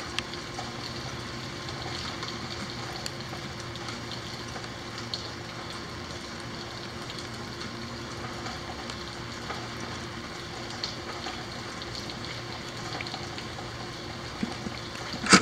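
Steady rain falling, a continuous hiss with scattered small drop ticks. Right at the end comes one short, loud bump.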